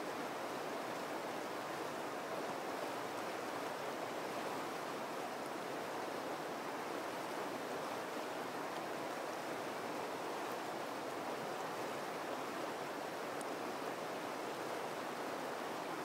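River rapids: fast, high water rushing and churning over rocks in a steady, unbroken roar of white water.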